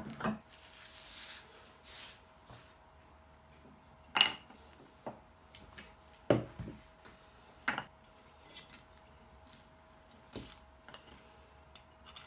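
A hand plane and small wooden pieces handled and set down on a wooden workbench: a handful of sharp knocks with quiet gaps between them, and a short rustle about a second in. A faint steady hum underneath.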